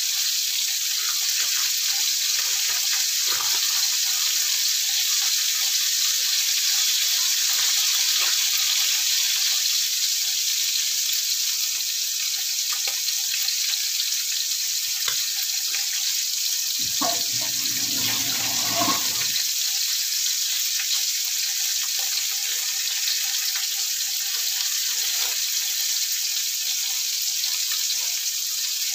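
Red snapper heads frying in hot oil in a wok: a steady sizzling hiss with scattered small crackles and pops.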